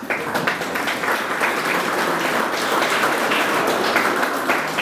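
Crowd applauding: many hands clapping in a dense, even patter.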